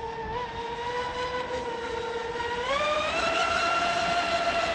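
RC speedboat's motor running with a high whine from out on the water, pitch stepping up and getting louder about two and a half seconds in as the boat speeds up.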